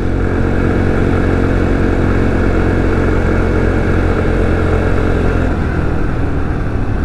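X-Pro Vader 125cc motorcycle's single-cylinder four-stroke engine running steadily while riding, with wind and road noise over it; the steady engine note changes about five and a half seconds in.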